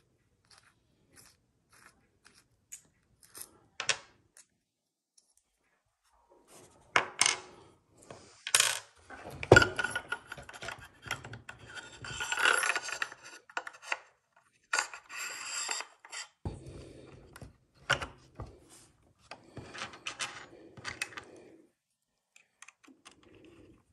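Small metal parts being handled: clicks, scrapes and metallic clinks of a red dot optic, its mount screw and Allen wrench as the optic is fitted onto a shotgun's top rail. A few faint ticks at first, then a busy run of clicking and clattering in the middle, then scattered clicks.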